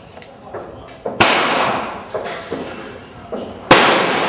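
Two black powder revolver shots, about two and a half seconds apart, each a sharp loud report with a long echoing tail; the second is the louder.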